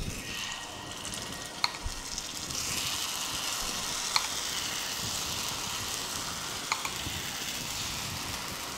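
Spicy millet paniyaram batter sizzling in hot oil as it is spooned into the wells of a paniyaram pan; the sizzle gets a little louder a couple of seconds in as more wells fill. A few short sharp clicks stand out over it.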